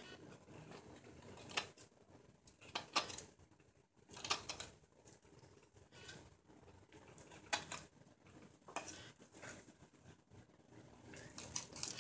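Hook knife cutting into silver birch, scooping shavings out of a ladle's bowl: faint, short scraping cuts a second or two apart, some in quick pairs.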